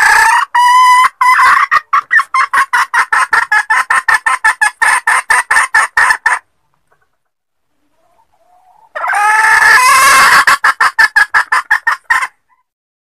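Red junglefowl hen cackling: a held call note breaks about a second and a half in into a fast run of clucks, about six a second, that stops abruptly. After a few seconds' silence comes a second bout, again a held note followed by rapid clucks. This is the hen's cackling call used as a lure to draw junglefowl in.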